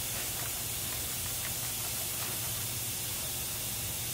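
Steady hiss with a low hum under it. A few faint, short scrapes come from a red abrasive scuff pad rubbed over a primed part.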